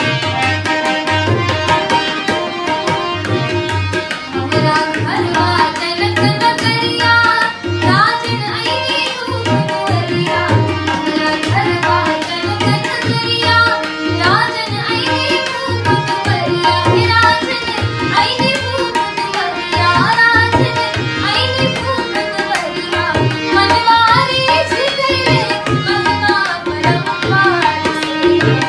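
Tabla keeping a steady rhythmic cycle under a harmonium's held reed chords, with a woman singing an ornamented melody over them, her voice gliding between notes.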